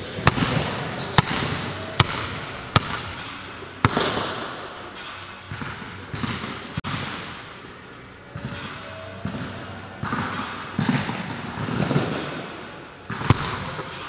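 Basketball bouncing on a hardwood gym floor: five bounces about a second apart in the first four seconds, then one more near the end.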